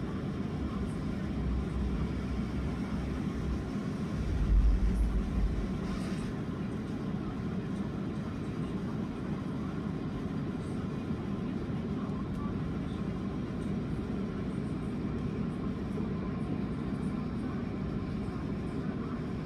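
Steady low rumble of outdoor background noise, like distant traffic, with a brief louder low rumble about four and a half seconds in.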